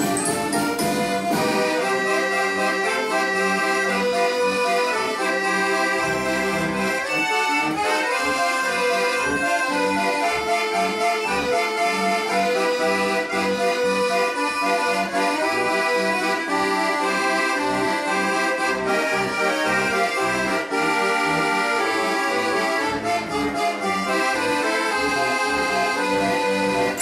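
Accordion playing a tune: sustained melody and chord notes over short rhythmic bass notes, which grow more regular from about seven seconds in.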